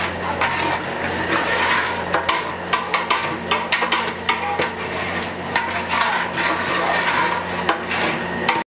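Metal ladle stirring and scraping a thick onion-tomato masala in a large cooking pot as it is sautéed, with frequent knocks and clanks of metal on metal. A steady low hum runs underneath.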